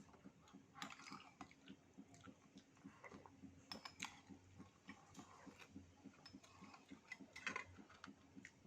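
Faint eating sounds: a few soft, wet mouth clicks and chewing noises, over a fast, faint, even ticking.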